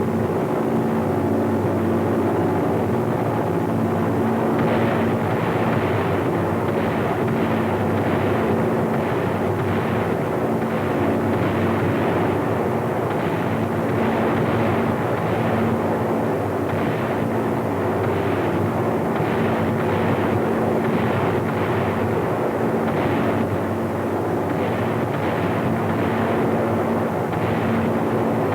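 Steady drone of A-20 Havoc bombers' twin radial engines at low level, with a long run of rapid blasts starting about four or five seconds in: bombs and fire striking the target factory.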